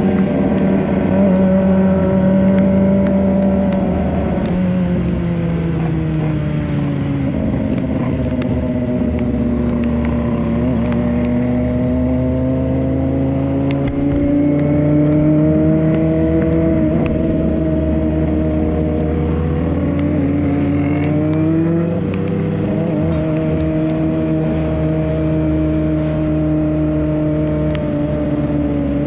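Motorcycle engine running steadily under way, its pitch rising and falling slowly as the bike speeds up and eases off.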